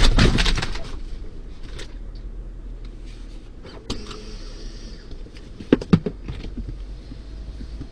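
Car cabin noise picked up by a dashcam as the car slows to a stop: a loud, crackly rumble in the first second that dies down to a low hum, with a few scattered clicks and knocks, two sharper ones about six seconds in.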